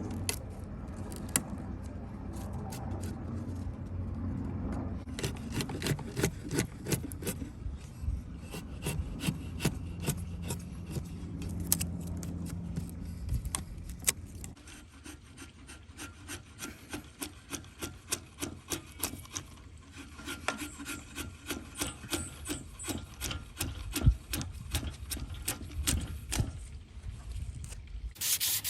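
Wooden axe handle being shaped by hand with a rasp: repeated scraping strokes across the wood, settling into an even rhythm of about two strokes a second in the second half.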